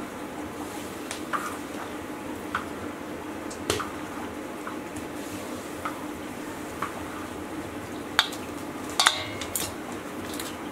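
Blanched bracken fern stalks being stirred and turned in a stainless steel basin: scattered light clinks and taps on the metal, with a few louder ones near the end, over a steady low hum.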